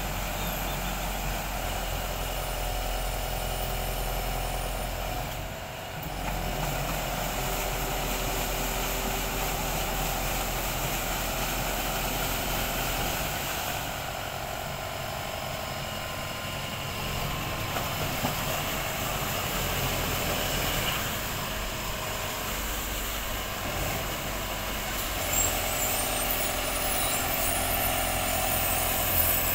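The engine of an amphibious aquatic weed-harvester boat running steadily, with its paddle wheels churning and splashing water.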